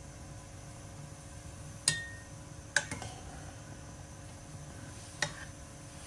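A steel spoon clinking against an aluminium karahi of hot water three times, the first knock followed by a brief metallic ring, over a steady low hiss.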